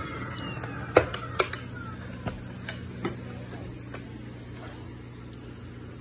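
Upright vacuum cleaner's motor winding down with a falling whine, then a handful of sharp clicks and knocks as the vacuum is handled, over a low steady hum.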